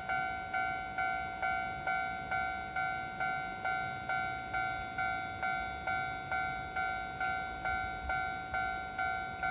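Japanese railway level-crossing warning bell ringing its repeated electronic clang, a little over two strokes a second, each stroke dying away before the next: the signal that a train is approaching and the crossing is closing.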